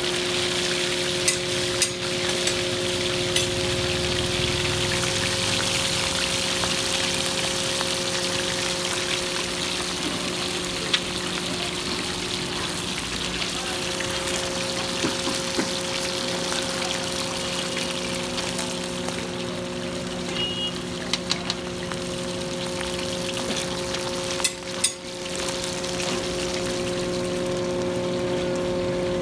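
Fish frying in oil on a large flat iron tawa griddle: a steady sizzling hiss, with a few sharp clicks of metal tongs on the griddle. A steady low hum runs underneath.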